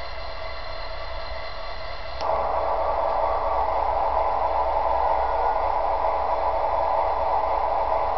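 Model locomotive sound decoder playing a diesel engine running steadily through small test speakers. About two seconds in, a click is followed by an instant jump to a louder, fuller sound, as the changeover switch puts the output onto the other speaker pair.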